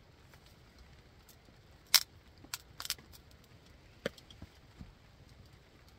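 Knife working a wooden arrow shaft: a few sharp clicks and snaps, the loudest about two seconds in, a quick cluster just after, and a few lighter ones near the end.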